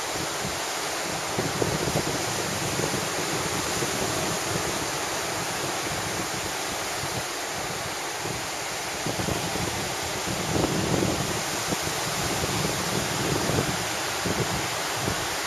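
Ocean surf breaking and washing up a sandy beach in a steady rush of noise, with a fairly strong wind buffeting the microphone in gusts.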